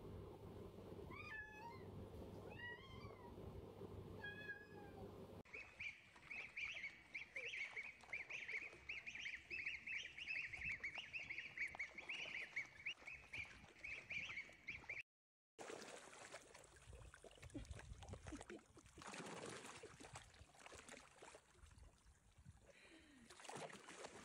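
A domestic cat meowing three times, each call rising and falling in pitch. Then a group of ducklings peeping rapidly and continuously in high chirps for about nine seconds, followed after a short silent gap by an unclear noisy stretch.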